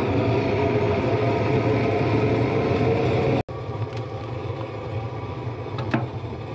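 Handheld gas torch burning steadily, its flame pushed into the opening at the base of a steel burn barrel to light the kindling inside. The level drops suddenly about three and a half seconds in, and a single sharp click comes near the end.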